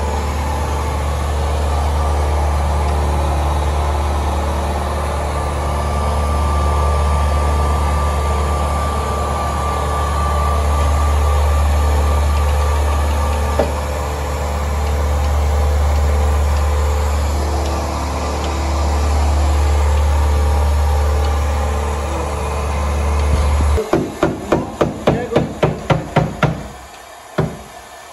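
A steady low machine hum, like a motor or pump running. Near the end it stops, and a rapid run of sharp knocks follows, about five a second.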